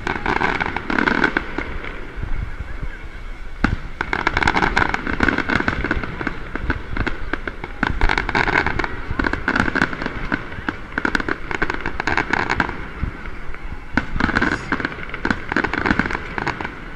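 Aerial firework shells bursting overhead: repeated sharp bangs that come in several clusters a few seconds apart.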